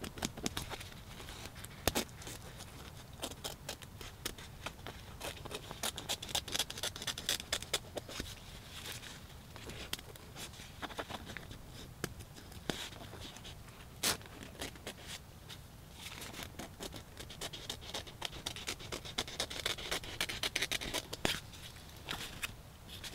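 Nylon tent fabric being cut with a knife and scissors and pulled away by hand: scratchy cutting and fabric rustling, with many sharp clicks, the loudest about two seconds in and again about fourteen seconds in.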